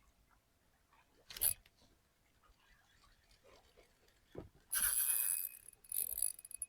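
Close rustling and crackling handling noise: a short burst about a second and a half in, then a louder, longer stretch of crackling from about two-thirds of the way through.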